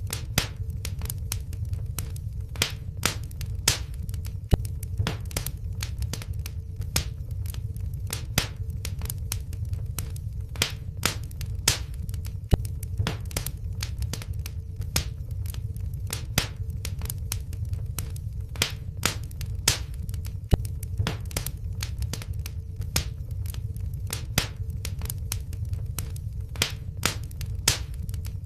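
Wood fire burning in a fireplace: frequent sharp crackles and pops from the logs, irregularly spaced, over a steady low rumble of the flames.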